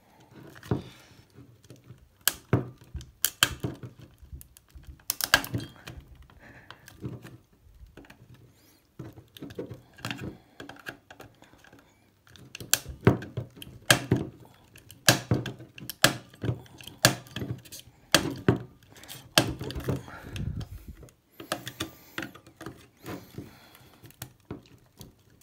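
Flat-head screwdriver prying at a hard plastic BottleLox security cap on a bottle neck: irregular sharp clicks and knocks of the metal blade on the plastic, coming in short clusters with pauses between.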